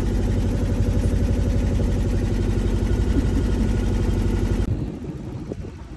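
The tender's engine running steadily at idle, a low, fast-pulsing hum. About three-quarters of the way through it cuts off abruptly and gives way to quieter wind noise on the microphone.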